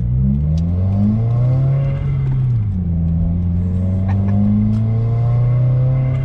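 Subaru WRX's turbocharged flat-four engine pulling under acceleration. The engine pitch rises, drops suddenly a little before halfway at a gear change, then climbs again and levels off.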